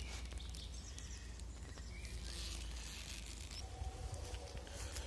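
Deciduous-forest ambience: faint birdsong over a steady low rumble.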